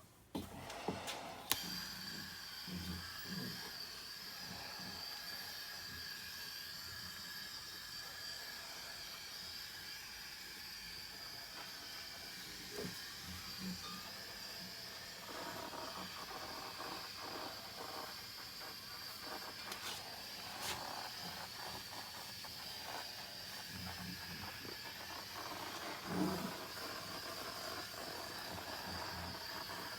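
Redline EZ50 powder coating gun spraying, its compressed air giving a steady hiss that switches on with a few clicks just at the start, with occasional light knocks of the parts being handled.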